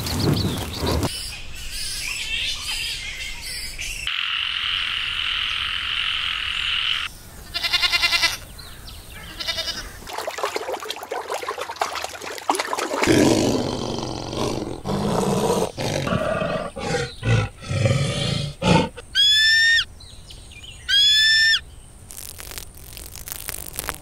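A series of short, different animal sound clips cut one after another. A water buffalo's call ends about a second in; later comes a rapid pulsed trill, and near the end two loud rising-and-falling calls.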